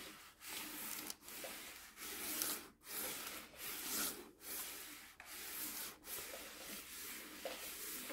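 A clothes iron's soleplate sliding back and forth over parchment paper, a faint dry papery rubbing in repeated strokes, a little under one a second.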